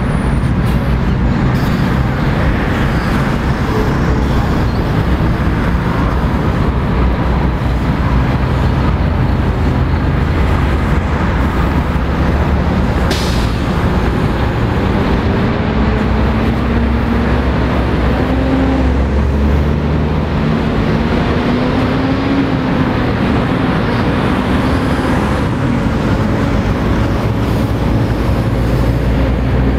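Heavy road traffic: lorries, tractor-trailers and cars passing close by, with a steady low engine rumble and engine notes that rise slowly as trucks pull away. A short hiss about 13 seconds in.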